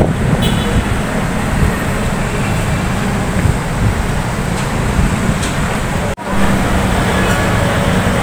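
Steady city street traffic noise, a low rumble of passing cars, which drops out briefly about six seconds in.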